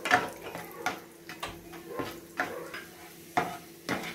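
Coconut-shell ladle knocking and scraping against a non-stick frying pan while cashews and raisins are stirred in ghee, in irregular sharp clicks and knocks.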